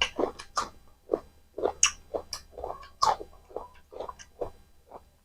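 Close-miked chewing of spicy mutton curry and rice: wet smacks and clicks, irregular, about two or three a second.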